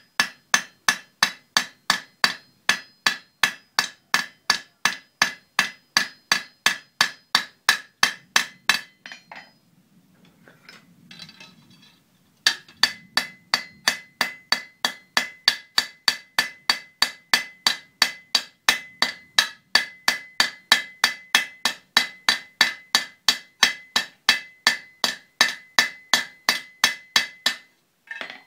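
Hand hammer striking metal on an anvil in a fast, even rhythm of about three blows a second, each with a short metallic ring, peening over a rivet to fix a forged hook in place. The blows stop for about three seconds partway through, then start again and run on until just before the end.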